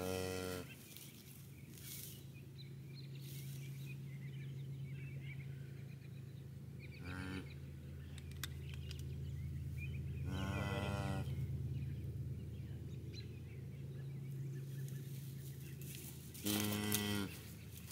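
Cattle calling: four drawn-out moos, each about a second long and several seconds apart, over a steady low hum. A single sharp click comes about eight and a half seconds in.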